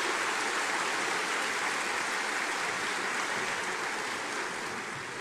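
Large crowd applauding steadily, the clapping slowly dying down near the end.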